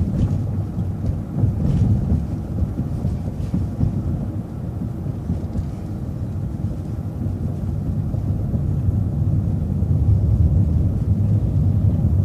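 Transit bus engine and road noise heard from on board: a steady low rumble that eases a little mid-way and builds again near the end, with a few faint rattles.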